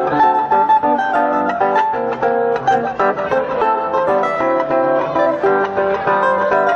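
Acoustic guitar playing an instrumental samba passage of quick plucked notes, with no singing.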